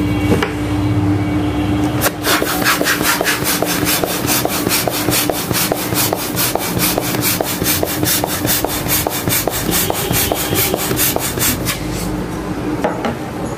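A balloon being pumped up with a hand pump: quick, even whooshing strokes, about three a second, starting about two seconds in and stopping near the end as the balloon reaches full size.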